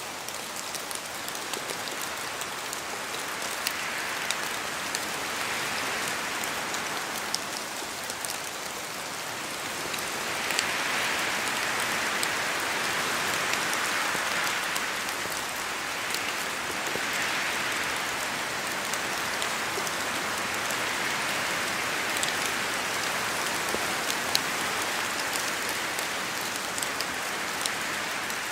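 Steady rain falling in a forest, with many individual drops ticking, presumably off the trees, over an even hiss. Wind rises and falls in slow gusts, and the sound grows a little louder about a third of the way in.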